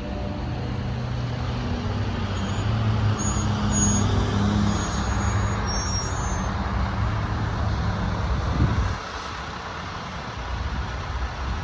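An engine running with a steady low drone that swells over the first few seconds, holds, then drops away sharply about nine seconds in.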